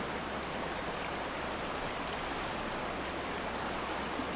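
Rocky mountain stream rushing steadily over stones in a shallow riffle, an even, unbroken rush of water.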